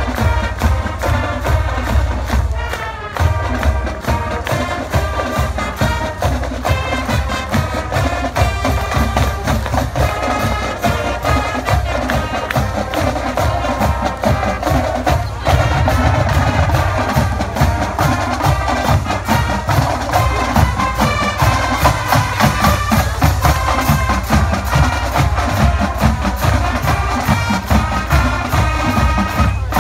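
High school marching band playing: brass and sousaphones over a drumline's steady beat. It gets louder about halfway through.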